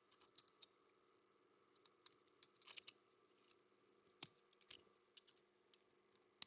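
Faint, scattered small clicks and taps from tweezers and fingers working a MacBook Air's wireless antenna loose from its little plastic pressure clips.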